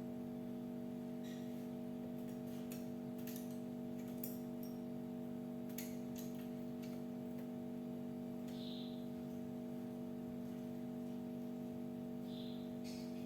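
Irregular light clicks and taps, with two short, soft high notes about nine and twelve seconds in, over a steady low hum. The high notes are typical of a cinereous tit's quiet calls.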